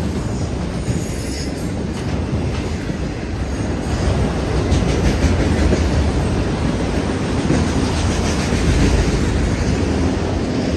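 Autorack freight cars rolling past close by: a steady, loud rumble of steel wheels on rail with faint repeated clacks, growing louder about four seconds in.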